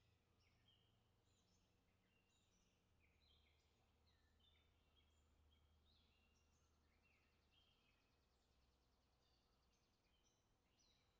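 Very faint birdsong: several birds chirping and calling over one another, with a buzzy trill about six to seven seconds in.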